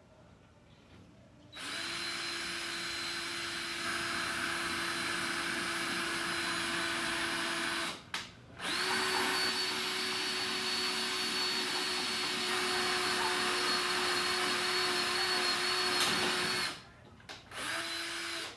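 Power drill boring a pilot hole for a Tapcon masonry screw, its motor giving a steady whine. There are two long runs of about six and eight seconds with a short break between them, then a brief last burst near the end.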